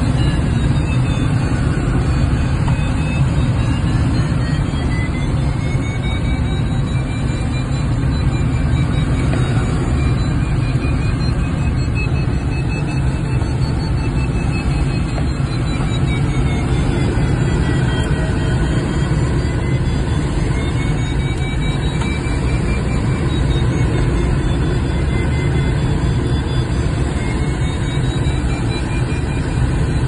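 Light aircraft's engine and propeller running steadily with wind rush, heard from inside the cockpit during a climb. Faint whistling tones slowly rise and fall above it.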